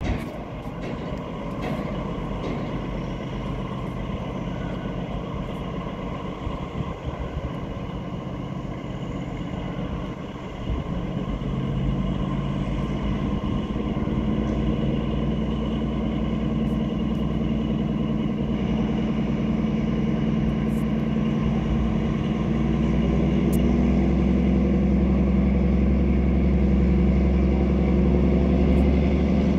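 A pair of MÁV class 418 (M41) diesel-hydraulic locomotives running under power as they pull away, a steady low drone. It grows louder about ten seconds in and again past twenty seconds as they come closer and work harder.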